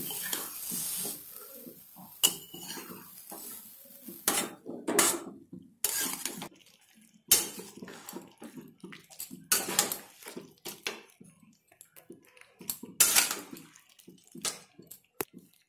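Metal spatula scraping and knocking against a metal pan while minced chicken and onions are stirred, in irregular strokes with short pauses between them.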